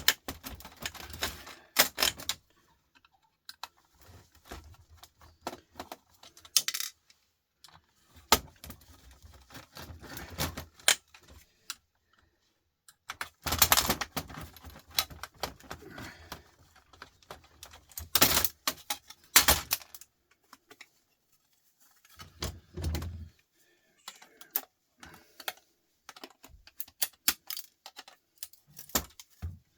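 Irregular clicks, rattles and clatter of small metal and plastic parts and hand tools while a CD changer is taken apart, with a few louder clattering bursts in the middle.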